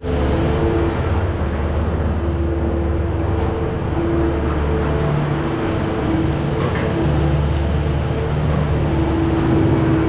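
Skid steer loader's engine running steadily while it pushes wet manure and bedding with its bucket, with a steady whine that comes and goes.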